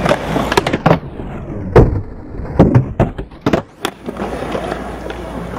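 Skateboard wheels rolling on concrete, broken by a run of about eight sharp clacks and slaps of the board popping and landing. The loudest come about two seconds in, and the rolling returns near the end.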